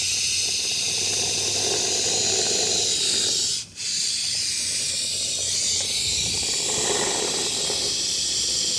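Aerosol can of expanding foam sealant spraying with a steady hiss, cutting off briefly about three and a half seconds in and then spraying again.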